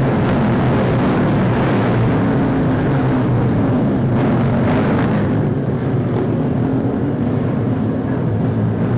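Small-capacity Cub Prix racing motorcycle engines running hard, several engine notes wavering up and down in pitch.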